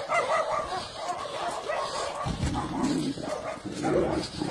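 A dog yelping and whining in a quick run of short cries, joined about halfway through by a low rumble.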